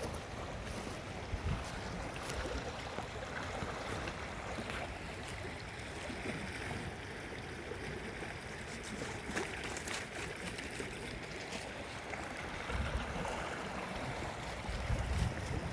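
Floodwater flowing and rushing steadily, with low rumbles of wind on the microphone now and then, strongest near the end.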